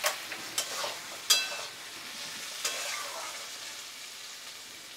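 Steel spatula scraping and clinking against a metal kadai while stirring a thick, dry oyster and potato masala, over a steady sizzle. There are a handful of strokes in the first three seconds, and the sharpest, ringing clink comes about a second and a half in.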